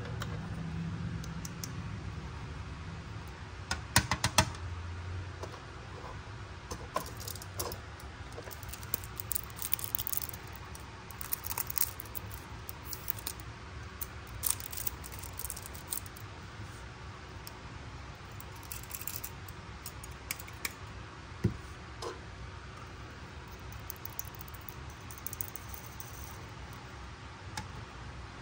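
Tiny plastic pieces of a miniature toy kitchen set, including a small clear mug and bottle, clicking, tapping and rattling as they are picked up and set down on a small plastic table. The clicks come scattered and irregular, the sharpest about four seconds in, over a low hum in the first few seconds.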